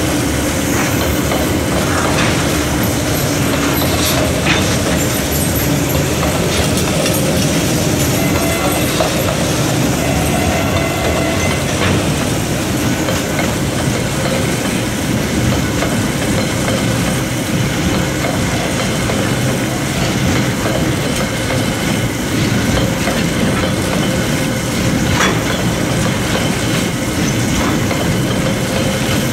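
A long freight train's wagons and container flat cars rolling past close by. The wheels rumble steadily and clack now and then over the rail joints.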